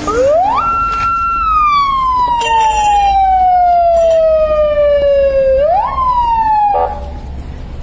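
Police siren wailing: the tone rises quickly, holds briefly, then falls slowly over several seconds before rising once more and dying away near the end. A few sharp knocks and a quick rattle sound under it.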